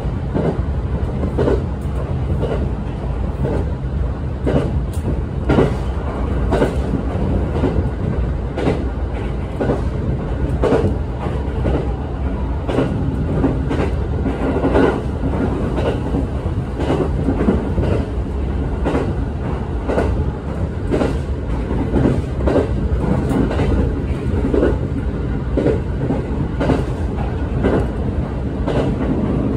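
Shinano Railway passenger train running at speed, heard from inside the passenger car: a steady low rumble with frequent irregular clacks as the wheels run over the track.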